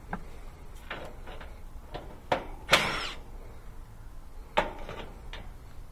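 Cordless drill/driver spinning off the nuts that hold a condenser fan motor to the unit's top grille: several brief whirs and clicks, the loudest about three seconds in.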